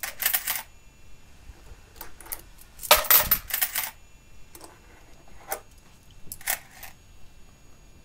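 Metal coins clinking as a hand rummages through a box full of euro coins and sets some down on a wooden shelf. It comes as a string of short clinks and jingles, the loudest and longest about three seconds in.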